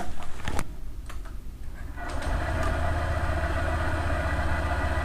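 A few light clicks, then about two seconds in a Honda ADV 150 scooter's single-cylinder engine starts and idles steadily with its CVT running. The mechanic presents this as the normal CVT cover-bearing noise of a cold start, which the owner says is not the noise he heard, his being much louder.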